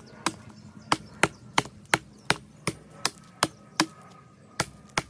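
Cold Steel Frontier Hawk tomahawk chopping into the trunk of a small standing tree: quick, sharp strikes of the head into the wood, about three a second, with a short pause about four seconds in.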